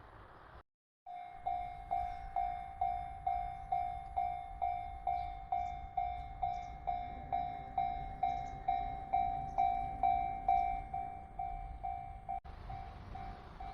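Japanese level crossing warning bell ringing its steady, evenly repeated 'kan-kan' tone, about two and a half strikes a second, each one dying away, over a faint low rumble.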